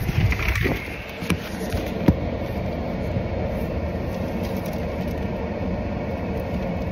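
Steady low rumble of a car heard from inside the cabin, with a few light knocks in the first two seconds.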